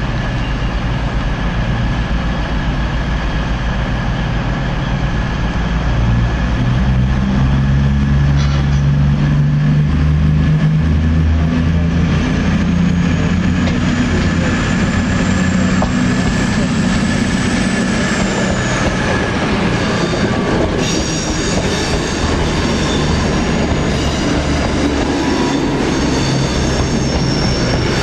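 Virgin Trains Class 221 Super Voyager diesel-electric unit running slowly into the platform and past, its underfloor diesel engines droning, louder through the middle. A thin high whine rises slowly and then drops away just past the middle, and thin high tones ring near the end as it rolls by.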